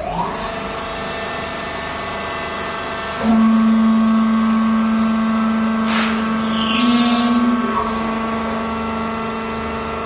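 Hydraulic power unit of a vertical fiber baler, its electric motor and pump running with a steady whine and hum. About three seconds in the sound grows louder with a strong low hum, and it eases back near eight seconds.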